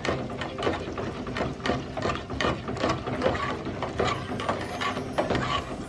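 A spoon scraping and knocking against the sides and bottom of a metal pot while a sauce is stirred: a fast, irregular run of clicks and scrapes, several a second.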